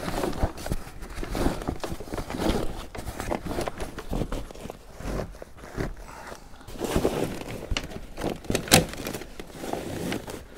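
Canvas and clear vinyl boat canopy panels being pulled and bunched by hand: irregular rustling and crinkling, with one sharp knock near the end.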